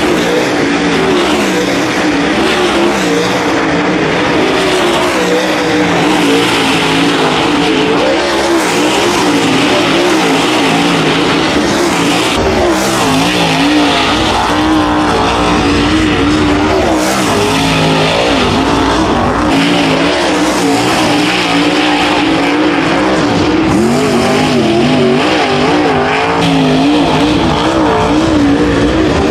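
Dirt late model race cars' V8 engines running hard around a dirt oval, their pitch wavering up and down as the drivers work the throttle through the turns and cars come and go past.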